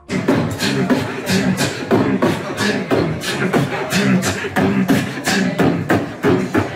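Beatboxing into a handheld microphone: a quick, steady rhythm of percussive mouth sounds mixed with hummed vocal tones.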